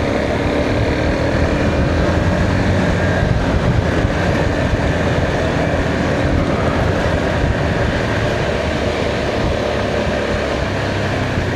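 Motorcycle running steadily at road speed, the engine under a thick rush of wind noise on the rider's microphone.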